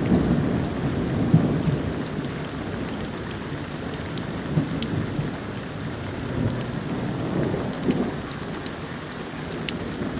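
Thunder rumbling over steady rain during a thunderstorm. The deep rumble is strongest at the start and swells again about halfway through and near the end, with scattered raindrop ticks throughout.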